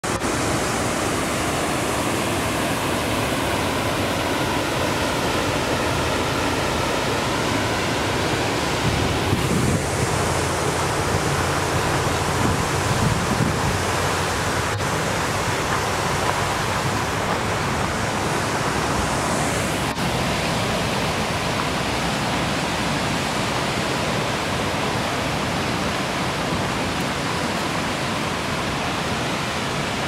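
Steady rush of falling water from a wide river waterfall, with a few gusts of wind buffeting the microphone about ten seconds in.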